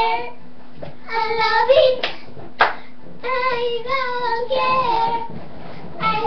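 Young girls singing short phrases with held, wavering notes. One sharp hit sounds about two and a half seconds in, between phrases.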